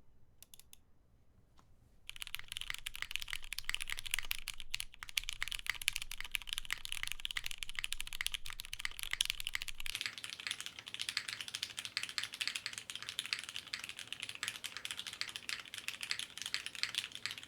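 Continuous fast typing on a mechanical keyboard with lubed vintage Cherry MX Black linear switches, GMK keycaps and an aluminium plate, starting about two seconds in after a few faint clicks.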